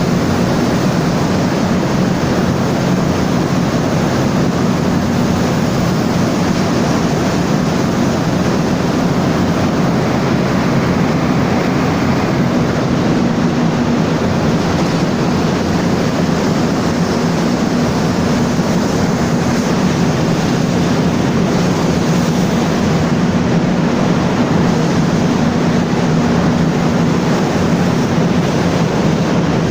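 Caterpillar 3616 V16 diesel generator engine running steadily at constant speed, a loud, even drone with a low hum running through it.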